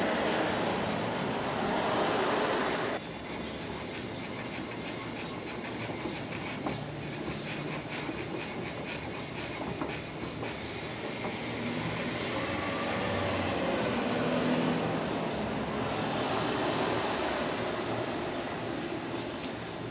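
Sandpaper rubbing on a cast aluminium motorcycle wheel as its bare metal is sanded smooth: a steady scraping friction noise. It drops abruptly about three seconds in and then carries on, rising and falling.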